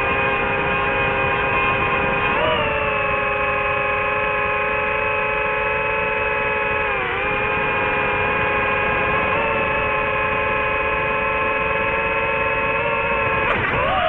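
Drone's electric motors and propellers whining steadily, several close tones over a rushing noise. The pitch lifts about two seconds in, dips briefly midway, and swings sharply near the end as the throttle changes.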